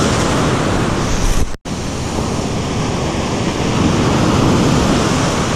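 Ocean surf breaking and washing up the beach close by, a steady loud rush, with wind buffeting the microphone. The sound drops out completely for an instant about a second and a half in.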